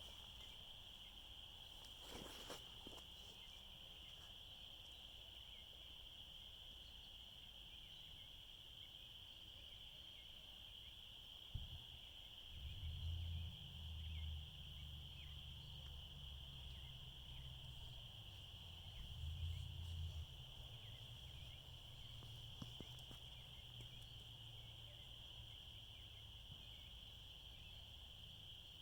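Faint night insects trilling steadily in one continuous high-pitched chorus. A low rumble joins from about halfway through, swelling twice.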